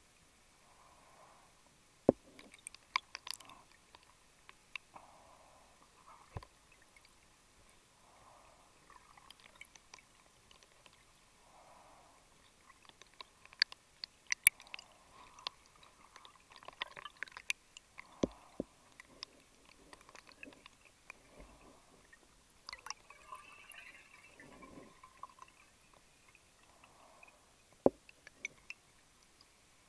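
Underwater sound of a diver's scuba gear: soft hushing breaths every few seconds, with scattered sharp clicks and knocks of equipment, the loudest about two seconds in and near the end.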